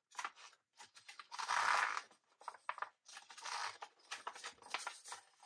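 Stiff glossy photo paper rustling and crackling as hands roll it into a tube and line up its edges, in several bursts, the loudest about a second and a half in.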